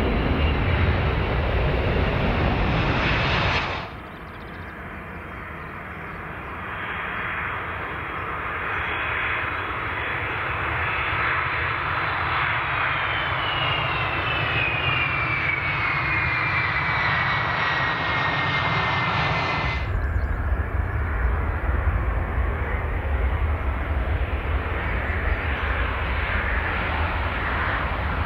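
Three airliner landings, cut one after another. A Boeing 767-400 rolls out after main-gear touchdown with a loud low rumble. After an abrupt cut about four seconds in, an Airbus A330-200 comes in to touch down, its jet noise building and its engine whine falling in pitch; about twenty seconds in, a cut to an Airbus A350-900 rolling out on the runway with a loud low rumble.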